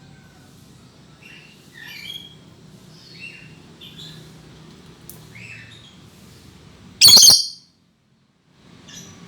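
A lory (nuri parrot) giving a string of short chirps and squawks, then one loud, harsh squawk about seven seconds in.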